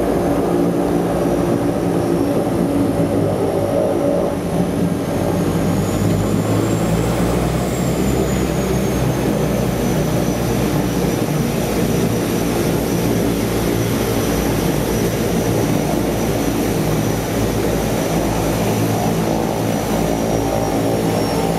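Floatplane's propeller engines running steadily, heard from inside the cabin as it runs on the water after touchdown. A thin high whine rises and then falls about a third of the way in.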